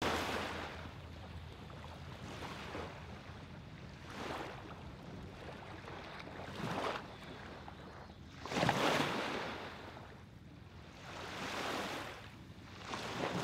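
Small lake waves washing onto a sandy shore, the hiss swelling and fading every two seconds or so, the largest wash about two-thirds of the way through, over a low rumble of wind.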